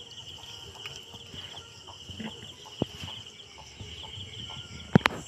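Small fish flapping in a wet cast net as it is handled on the ground, giving scattered soft taps and thumps, with a sharp double knock about five seconds in. A steady insect trill sounds behind it.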